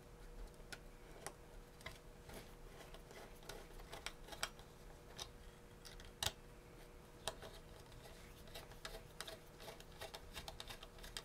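Faint, irregular light clicks and taps of small metal hardware being handled: M3 screws, spring washers and nuts being fitted to mount a small motor. A few sharper clicks stand out around the middle.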